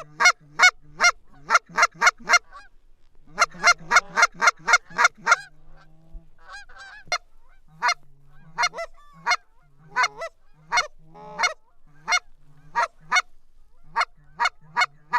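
Hunter's goose call blown in quick runs of loud honks and clucks, about three to four a second, then slower single notes with short gaps.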